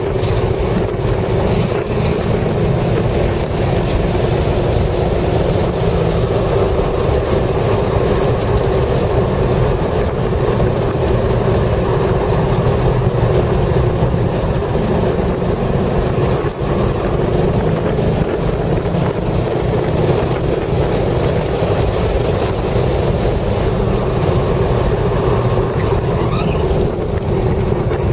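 Chevrolet Corvette C6 Z06's 7.0-litre LS7 V8 running hard at high revs under track driving, heard from inside the cabin with wind and road noise, a steady loud drone.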